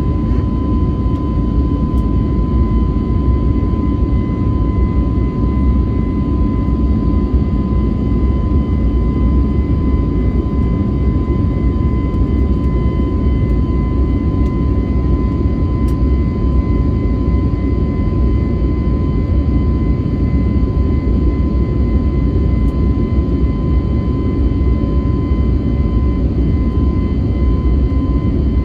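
Cabin sound of an Airbus A321neo climbing on its CFM LEAP-1A engines at climb thrust: a steady, loud low rumble with a thin steady whine over it.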